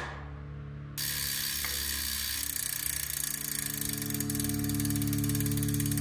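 Road bike rear hub freewheeling: a rapid, even buzz of pawl clicks as the hand-spun rear wheel coasts, starting about a second in.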